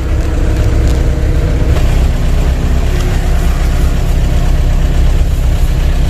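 Medium bus's engine idling, heard loud from inside the cabin at the front: a steady, deep rumble.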